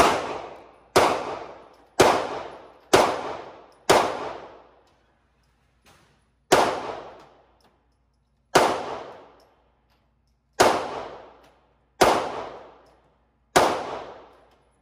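Ten handgun shots, each followed by a long echoing tail: five about a second apart, then five more at slower, uneven spacing.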